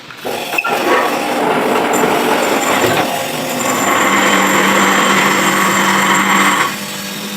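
Manual lathe turning while the threading tool cuts into the spinning workpiece: a steady scraping noise over a low hum. It is loudest in the middle and drops back suddenly about two-thirds of the way through.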